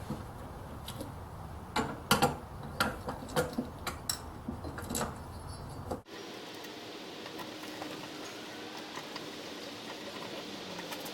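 Irregular metallic clicks and taps of hand tools working on the screws of a small mower engine's ignition coil, then, after an abrupt cut about six seconds in, a steady hiss of room noise.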